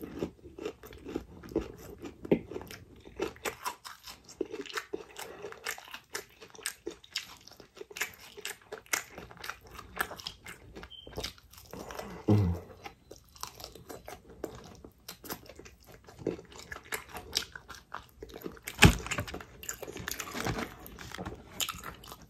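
Close-up chewing and crunching of crispy fried chicken, with irregular crackles of the breaded crust between the teeth. One sharper crunch is loudest, about three-quarters of the way through.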